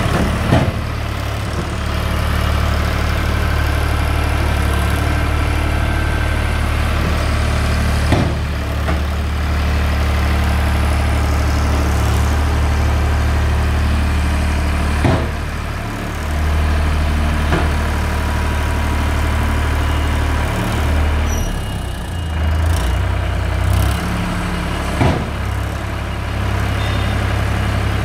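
VST Shakti Viraj 9054 DI tractor's diesel engine running steadily, its note shifting a few times in the second half. About five brief sharp knocks are spread through.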